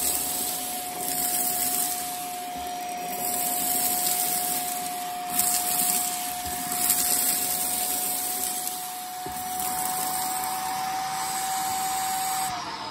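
Shark vacuum cleaner running with its upholstery tool, sucking up small dry debris: a steady whine over the rush of air, with a few louder bursts. Near the end the whine starts to fall as the motor winds down.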